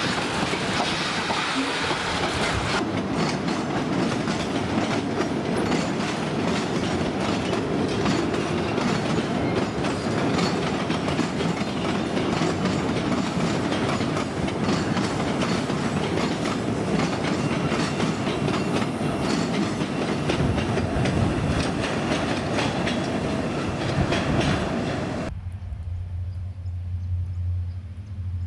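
Freight train wagons rolling past, steel wheels clacking continuously over the rail joints. About 25 seconds in, the sound cuts off suddenly and a low steady hum is left.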